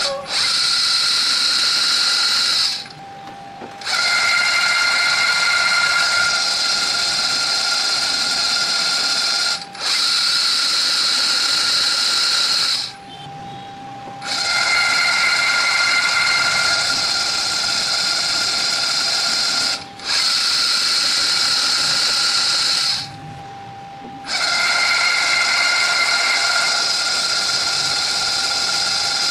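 A drill press motor whines steadily as a twist bit drills through a steel flat bar. The drill cuts out three times for about a second, between holes.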